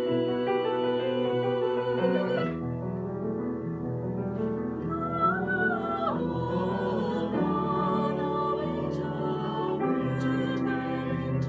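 Classical solo voice singing with vibrato over piano accompaniment.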